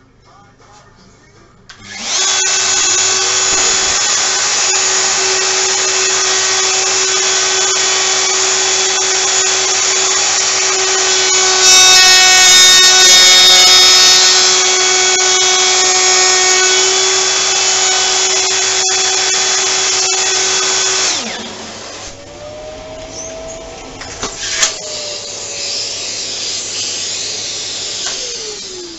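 Plunge router switched on about two seconds in, running with a steady high whine. It gets louder for a few seconds in the middle as the bit cuts the front notch of a chair seat in the routing jig, then shuts off. A quieter dust-extractor suction runs on afterward and winds down near the end.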